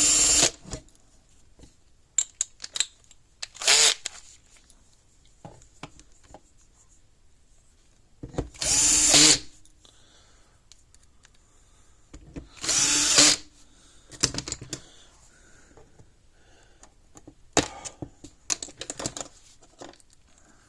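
Power drill-driver backing screws out of a plastic fence-charger case in four short whirring bursts, the later two longer and louder, with small clicks of plastic parts being handled in between.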